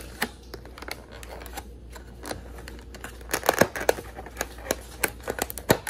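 Clear plastic clamshell takeout container being handled and its lid unsnapped: a run of sharp plastic clicks and crackles, thickest about three and a half seconds in, with one loud snap near the end.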